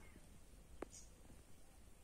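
Near silence, broken about a second in by a faint click and one faint, short, high peep from olive-backed sunbird nestlings in the nest.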